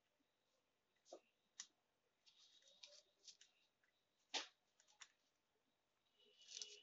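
Near silence with a few faint clicks and soft scratchy crackles, the loudest click a little past the middle, as a soldering iron presses desoldering braid onto solder joints on an amplifier circuit board.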